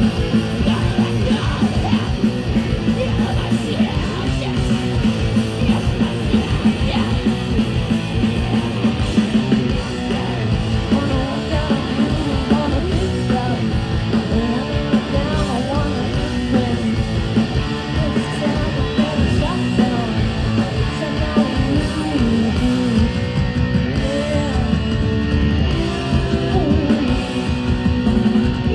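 Loud live heavy rock band playing: distorted electric guitars and pounding drums, with sung and yelled vocals over them.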